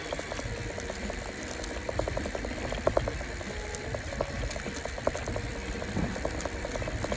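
Wind buffeting the phone's microphone with a low road rumble from a bicycle coasting fast downhill, broken by many irregular small clicks and rattles.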